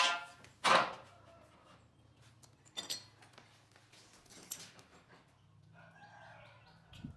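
Two sharp knocks of hammer blows during bed assembly, the first with a short ringing tail, then a few faint taps. A brief squeaky, whining sound comes near the end.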